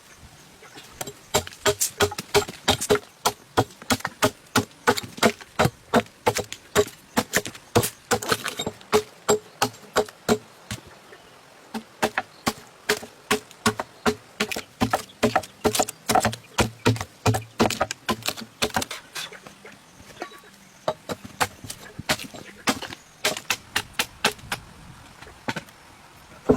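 Rapid, repeated sharp blows of a hand tool striking wood, about two to three a second. The blows come in a long run, pause for a couple of seconds about twenty seconds in, then carry on briefly.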